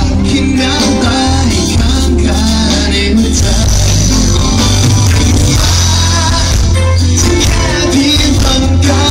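Live pop-rock band playing: electric guitars, bass guitar and keyboards over a steady beat, with male voices singing at times.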